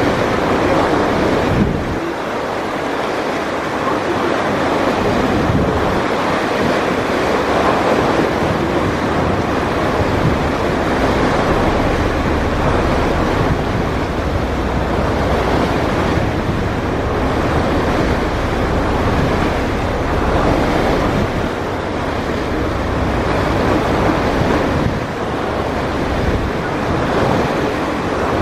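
Wind buffeting the microphone aboard a moving Mersey ferry, with gusty low rumbles that come and go over a steady rush of wind and water.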